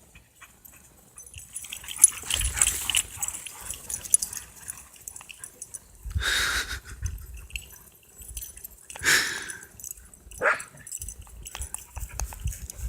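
Pet dogs barking at birds overhead, in a few separate outbursts about two, six and nine seconds in.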